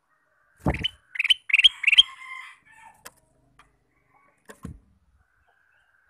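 A male ruby-throated bulbul (kutilang emas) sings a short phrase of three or four quick, rising whistled notes, ending in a brief buzzy trill. A dull thump comes just before the song and another near the end.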